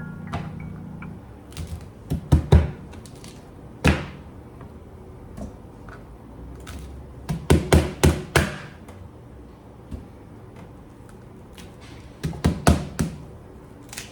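Clusters of sharp knocks and thunks from kitchen work with pots and utensils, two to four at a time, a few seconds apart.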